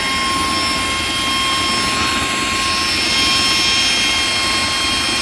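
Steady hissing roar of the blue flame burning from the tail nozzle of a 1:32 scale MiG-21 model's afterburner effect, with several steady high-pitched whines over it.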